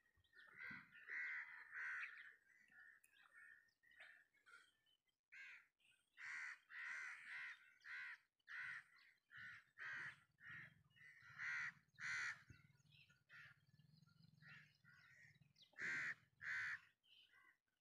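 Crows cawing faintly over and over: many short, harsh calls in quick succession, some in pairs and runs.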